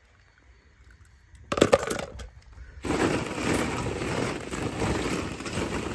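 Hollow plastic ball-pit balls clattering and rustling against each other as an arm digs through them: a brief rattle about a second and a half in, then a dense continuous clatter from about three seconds in that eases off near the end.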